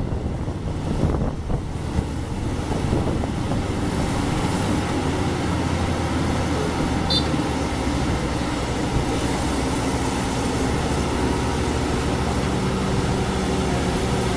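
Heavy vehicle engine running steadily, with a short high-pitched beep about halfway through.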